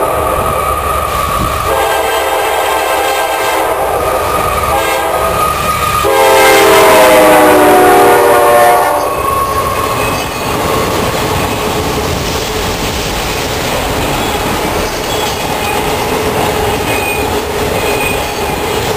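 Freight locomotive's air horn sounding as the train approaches, loudest from about six to nine seconds in, its pitch dropping as the locomotive passes. Then the steady noise of autorack cars rolling by on the rails, with faint wheel squeals.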